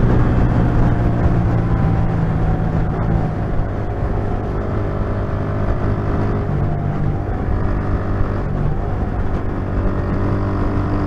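Honda CG 125 Titan's single-cylinder four-stroke engine running as the motorcycle is ridden, its exhaust note fairly steady with a few brief shifts in pitch, over a constant rush of wind and road noise.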